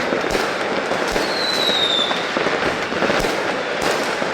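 Fireworks going off in a dense crackling barrage, with scattered sharp bangs and a brief falling whistle a little over a second in.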